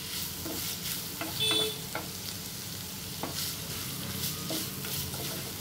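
A spatula stirring chicken gizzards in masala in a nonstick frying pan, with scattered scrapes and light knocks against the pan over a steady sizzle. A short, higher-pitched scrape comes about a second and a half in.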